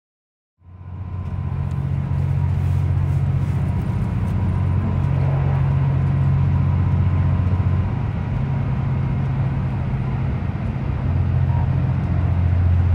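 Cummins C-DMF14HZ diesel engine of a KiHa 85 series railcar running steadily, a loud low drone with a faint high whine. It fades in about half a second in and grows a little louder near the end.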